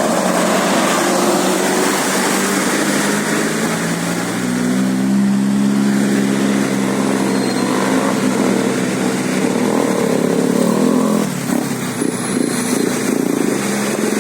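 Road traffic passing, with a vehicle engine running and a steady hum that is strongest from about four to eleven seconds in.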